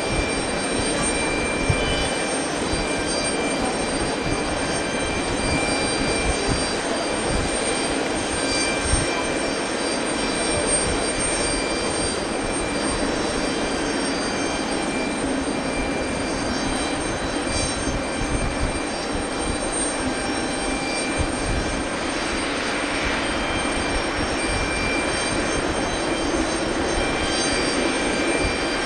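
Boeing 737-500 airliner's CFM56 jet engines running steadily: an even whine, with several high tones held over a steady rush of noise.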